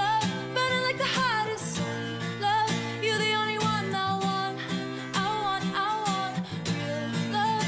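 Background music: a song with strummed guitar and a singing voice.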